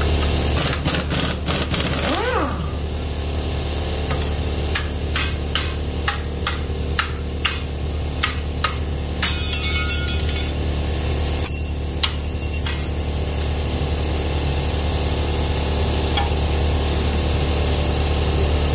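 Steady hum of a running air compressor under the work. Over it come metal clinks of tools and bolts, and a couple of short rattling bursts of an air impact wrench about halfway through, as the flywheel comes off a BMW 3-litre straight-six.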